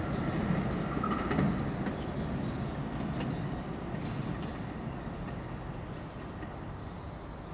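DART light rail train running away over the track switches, its rumbling wheel noise fading steadily, with a brief higher squeal about a second in.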